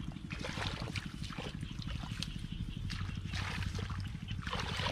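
Shallow muddy water splashing and sloshing in short, irregular bursts as hands grope through it among clumps of grass, over a steady low rumble.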